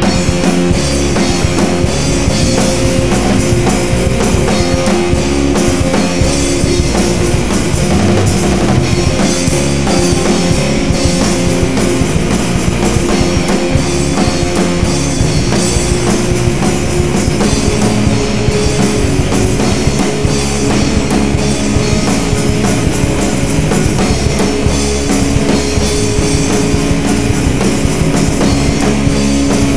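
Rock band playing at full volume, with drum kit, guitars and bass, coming in loud right at the start after a quieter passage.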